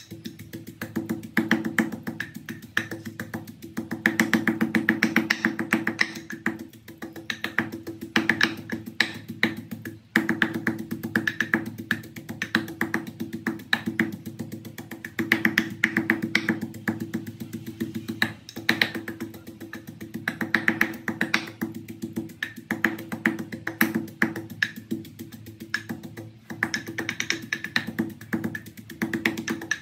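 Wooden pestle pounding a yellow spice paste in a wooden mortar: repeated dull knocks, over background music.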